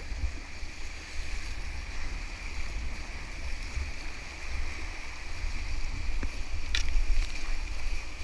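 River whitewater rushing and churning close around a small kayak running a rapid, with a steady low rumble underneath. There is a brief sharp knock about seven seconds in.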